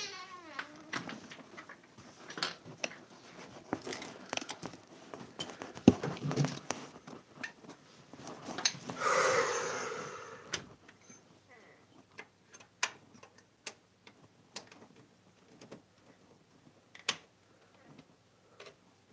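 Close handling noise: scattered small clicks and knocks, with a longer rustle about nine seconds in.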